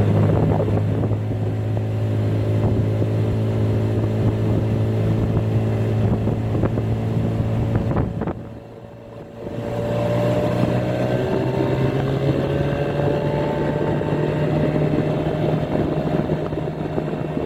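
A 20 hp Mercury two-stroke outboard running at wide-open throttle, pulling a small skiff from a standstill up onto plane. The engine sound drops out briefly about halfway through, then comes back with a slowly rising pitch as speed builds.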